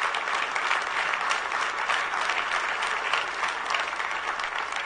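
Congregation applauding, a dense, steady clapping that holds at an even level.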